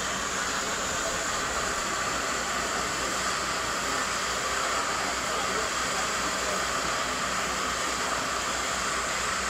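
Steady, unbroken hiss of liquefied petroleum gas escaping under pressure from a gas plant's storage tank, a continuous leak after the explosion.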